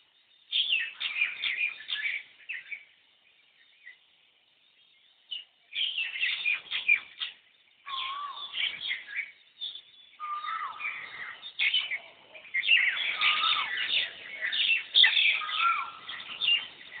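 Birds chirping and twittering in a dense chorus, coming in bursts with a pause of about two seconds after the first burst. A few lower whistled notes among the chirps bend upward at the end.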